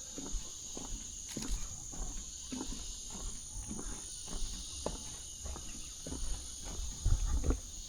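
Rainforest insects keep up a steady high-pitched drone, with a second thinner high tone above it, over soft crunching footsteps and leaf rustles from a walk through the jungle; low thumps grow louder near the end.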